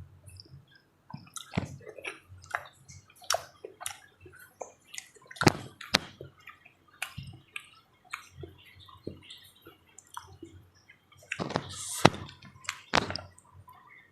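Close-up wet eating sounds of papaya in Marjan syrup being chewed, with irregular sharp smacks and clicks. There is a louder cluster about halfway through and another near the end.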